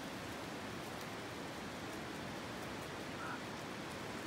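Steady, even outdoor noise with no distinct events: a constant hiss.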